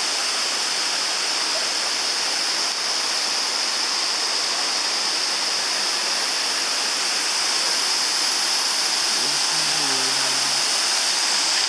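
Waterfall rushing, a steady, unbroken wash of water noise.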